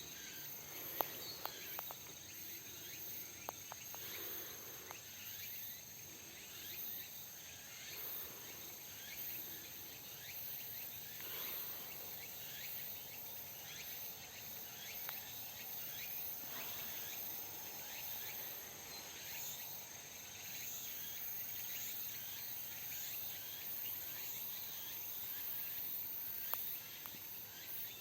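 Faint outdoor ambience with insects singing steadily in a constant high drone, and a few small clicks.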